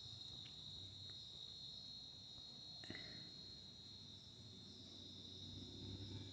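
Near silence: room tone with a faint steady high-pitched whine and low hum, and one faint click about three seconds in.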